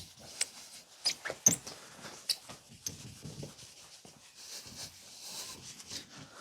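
Microfiber cloth rubbed by hand over a plastic headlight lens with plastic polish, giving short squeaks and a soft rubbing hiss, polishing away the lens's cloudy oxidation.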